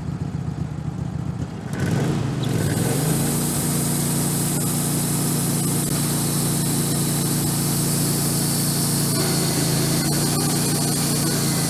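Wood-Mizer LT15 Go sawmill's engine coming in about two seconds in, its pitch settling within a second, then running steadily.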